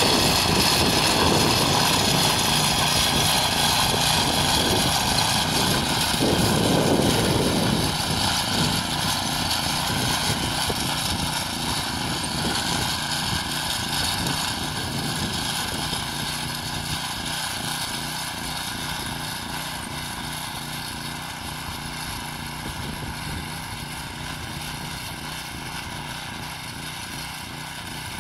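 Small gasoline engine of a Choremaster walk-behind tiller running steadily as its tines churn the soil, growing gradually fainter as it moves away, with a brief louder surge about six seconds in.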